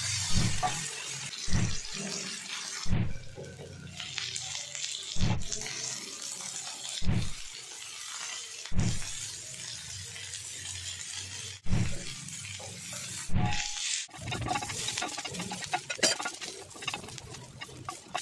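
Chicken pieces sizzling in hot oil in a heavy pan as they are stir-fried, a steady hiss. A dull thump comes every second or two.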